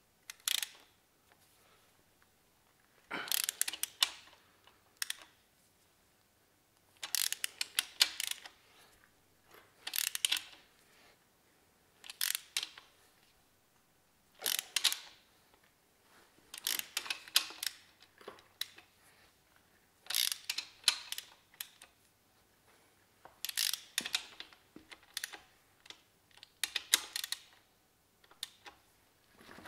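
Hand ratchet wrench clicking in short runs of rapid clicks every couple of seconds, as it is swung back and forth on the BMW M52 engine's main bearing cap bolts during the final 70-degree angle-tightening after a 20 Nm first stage.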